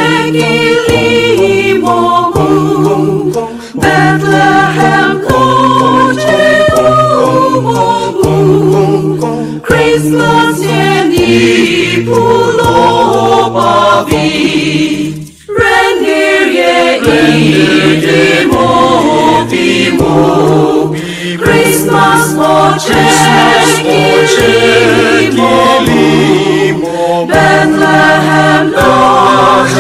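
Music of a choir singing, many voices together, that briefly drops out about halfway through before carrying on.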